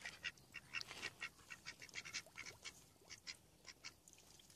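A pig wallowing in a shallow mud puddle: faint, irregular little splashes and squelches of muddy water, several a second.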